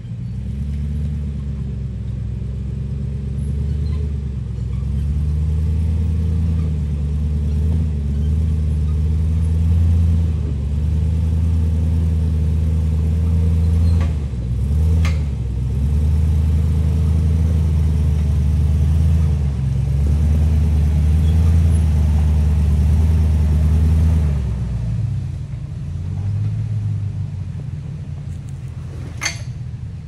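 Jeep engine running low and steady as it crawls off-road, its pitch dipping briefly a couple of times before it drops off about 25 seconds in. A few sharp clicks halfway through and near the end.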